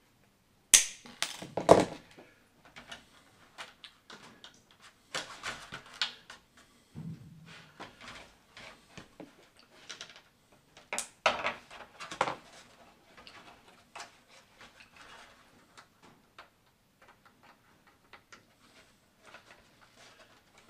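Clicks, taps and knocks of pliers and a wire aileron linkage being bent and fitted on a model aeroplane wing, loudest in a few sharp clicks about a second in and again around eleven seconds, with lighter handling noise between.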